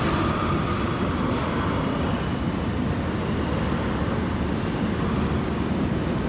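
Metro train pulling out of an underground station and running off down the track, a steady rumbling noise with a faint whine in the first couple of seconds that fades away.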